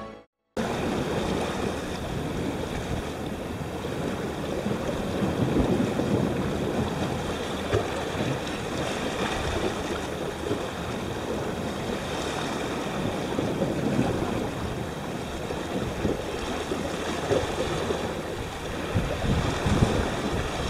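Sea washing against a rocky shore, a steady rushing noise with wind buffeting the microphone and a few soft low bumps.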